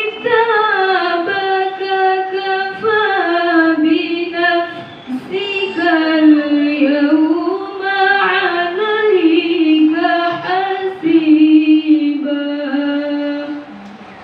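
A young woman's voice reciting the Quran in the melodic tilawah style into a microphone, with long held notes and ornamented rises and falls in pitch. The recitation ends about half a second before the end.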